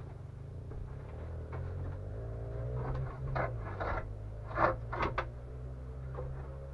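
A wooden plank bed frame being handled and lowered into place: scrapes and a handful of hollow wooden knocks, clustered a little past the middle, over a steady low hum.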